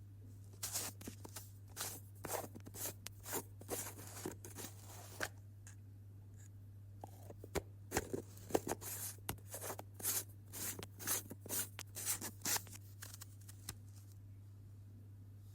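Lid of a glass jam jar being twisted and worked open: a long run of short, irregular clicks and scrapes, with a short lull about halfway through.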